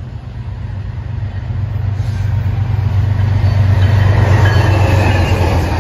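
BNSF GE ES44DC diesel-electric locomotives, led by a GEVO V12 engine, pulling a fast intermodal freight train: a steady low engine drone and rail noise grow louder as the train approaches, loudest in the second half as the lead unit reaches the listener.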